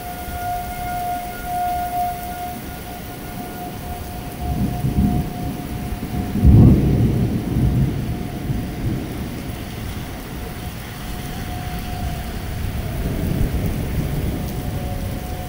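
Heavy rain pouring onto a paved parking lot, with thunder rumbling in. The loudest roll comes about six and a half seconds in, with more rumbling near the end. A steady high tone sounds in the background and dips in pitch near the end.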